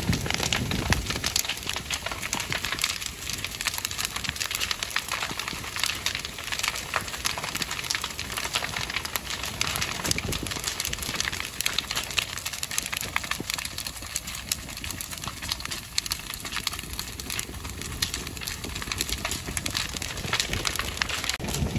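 Waste bins and their slatted bin shed burning hard, the fire crackling and popping continuously with many sharp, irregular snaps.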